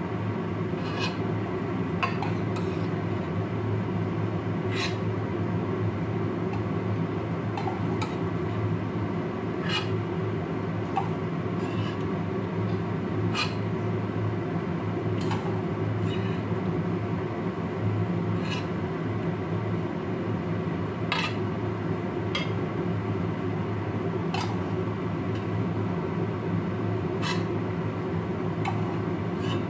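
Metal ladle clinking and scraping against a stainless-steel pot while noodles are stirred in broth, with sharp clinks every second or two over a steady low hum.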